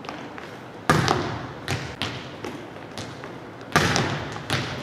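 Volleyballs being hit and bouncing on a hardwood gym floor: a series of sharp smacks, each ringing on in the large gym, the two loudest about a second in and near the end.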